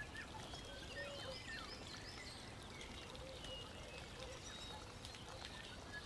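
Faint chirping of small birds in the background over a soft hiss: many short high chirps and little sliding notes.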